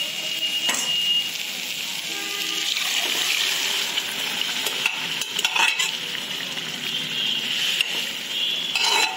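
Boiled chickpeas and their cooking water poured into hot masala in a metal kadai and sizzling steadily. A metal spatula scrapes and knocks against the pan now and then as they are stirred in.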